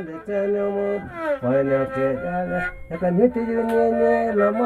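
Traditional folk music: a melody on a small handmade fiddle in long held notes that slide into pitch.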